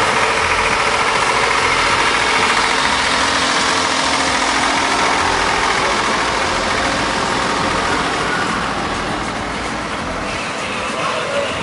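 Farm tractor engine running steadily as it pulls a parade float past at walking pace, with a pulsing low throb.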